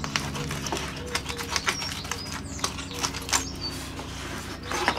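Scalpel blade cutting through the wood veneer of a model aircraft wing: an irregular run of small clicks and scratches.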